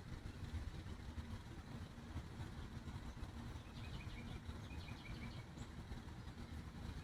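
Steady low outdoor rumble, with a short bird trill of quick high chirps about four seconds in.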